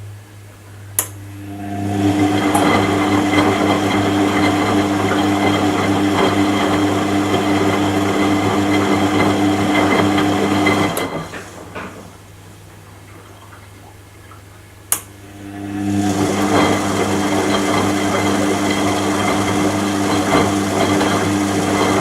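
Washing machine motor turning the drum in a wash cycle. It runs for about nine seconds, stops for a few seconds leaving only a low hum, then starts again. Each run is preceded by a sharp click.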